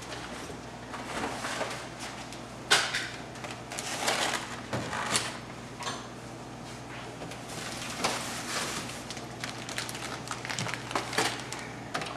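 Scattered knocks, clicks and clatters of someone moving about a kitchen, with one sharp click about three seconds in, over a low steady hum.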